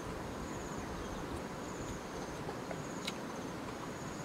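Insects trilling: a high, pulsing chirp in repeated stretches of about a second with short gaps, over a steady outdoor hiss, with a couple of faint clicks.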